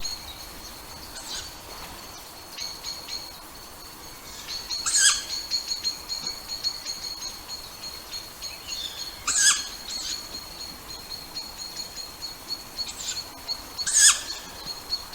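Tawny owl giving three short, harsh calls about four and a half seconds apart, with a few fainter calls before them, over a steady high-pitched trill.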